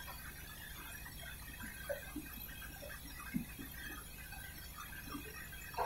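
Faint low hum from a Siemens iQ100 front-loading washing machine held at the end of its spin cycle, with a few light clicks from the machine.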